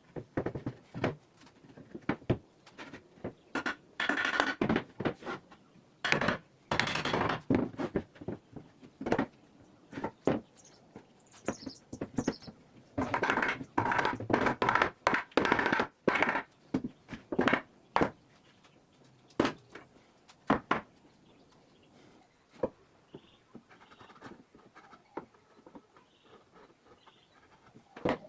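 Wood and tools being handled at a workbench: a run of knocks and clatter, with several stretches of scraping a second or two long. Faint bird chirps come through in the background.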